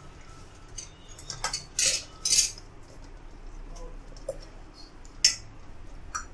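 Soft boiled tomatoes being squashed by hand against a perforated stainless-steel strainer bowl to work out a purée: irregular wet squishing and scraping with short metallic rasps and clinks. The loudest come about two seconds in and just after five seconds.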